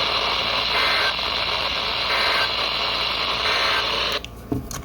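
Three short bursts of Emergency Alert System header data (SAME tones) coming through heavy radio static on a receiver, a little over a second apart. The static cuts off suddenly near the end, followed by a few clicks.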